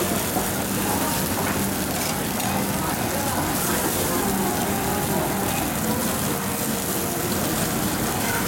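Kobe beef trimmings sizzling on a wire mesh over a charcoal fire, fat flaring up under the meat, a steady hiss.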